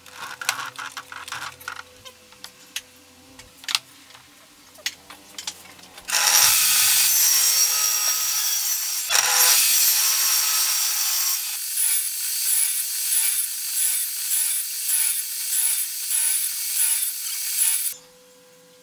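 Light knocks and clicks of a wooden board being handled on a table saw. About six seconds in, the table saw's blade starts cutting into the board, loud and steady. From about eleven seconds it goes in a rhythmic series of passes, about two a second, as the waste of the half joint is nibbled away, and it stops suddenly near the end.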